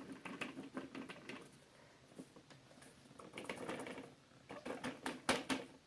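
Irregular light tapping, clicking and rustling of a plastic vacuum dust cup being knocked and handled to shake out collected baking soda, in clusters of quick taps with a few sharper knocks near the end.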